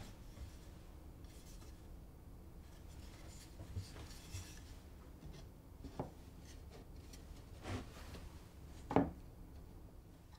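Plywood router base plate handled and set onto a plywood jig: soft rubbing of wood on wood and a few light knocks, the clearest about nine seconds in.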